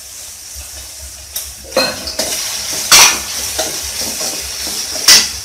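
Steel spoon stirring and scraping an onion-tomato masala frying in a metal kadai, over a steady sizzle. A few sharp clinks of spoon on pan, the loudest about three seconds in and near the end.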